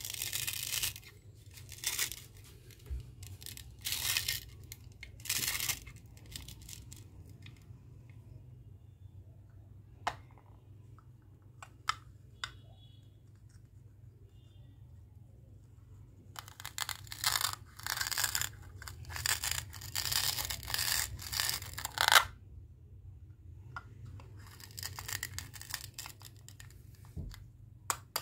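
Plastic toy fruit pieces being pulled apart and handled, making several bursts of rasping, tearing-like sound, with a long run of them past the middle and quiet stretches with a few clicks between, over a faint steady low hum.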